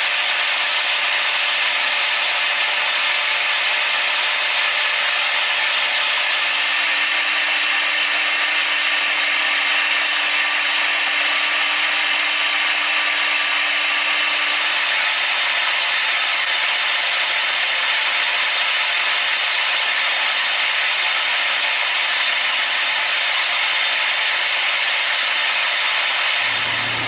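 A CNC machine tool cutting, giving a loud, steady grinding hiss with no rhythm.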